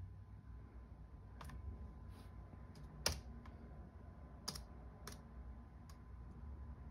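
A few single key presses on a Lenovo ThinkPad T420's laptop keyboard: faint, separate clicks about a second apart, the loudest about three seconds in.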